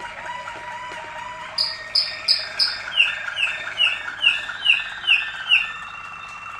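Caged Malinois (Waterslager) song canary singing: a quick run of repeated rolling notes, then from about a second and a half in a series of louder falling notes, about two to three a second, easing into a steadier held strain near the end.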